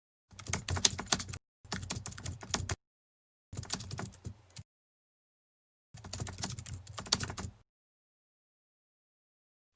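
Dog eating, with rapid clicking chewing sounds in four short bursts about a second long each.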